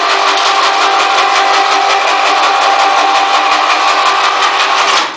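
Automatic wall-plastering machine running: a steady motor whine with several held tones and rapid, even ticking. It stops abruptly near the end.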